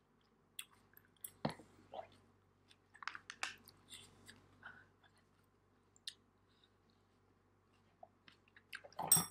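Close-miked mouth sounds of chewing noodles and kimchi: wet clicks and crunches scattered through the first half, then a burst of louder clicks and crackles near the end.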